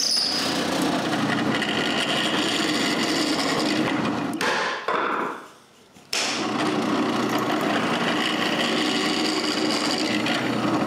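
Electric drill running steadily while drilling holes through plywood. It stops about five seconds in and starts again a second later.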